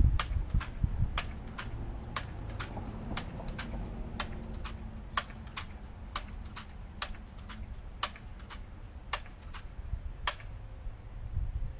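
Pump-up .177 pellet gun being charged: sharp clacks about twice a second, one stroke after another, stopping about ten seconds in.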